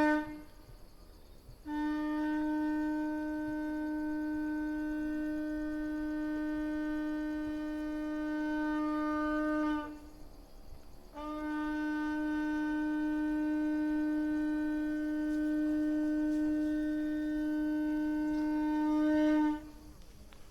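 A horn-like wind instrument blown in long, steady, held notes: one ends just after the start, then two more of about eight seconds each, with a short break between them. Each note holds one pitch and lifts slightly just before it stops.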